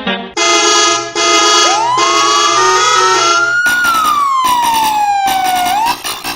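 Vehicle horn sounding in a series of chord-like blasts, with a siren over it that winds up over about two seconds and then slowly winds down.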